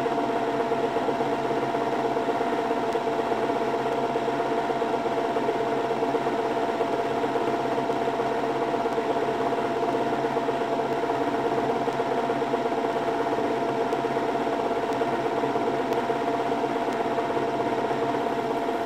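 A small machine running with a steady whirring hum that holds a few fixed tones and does not change.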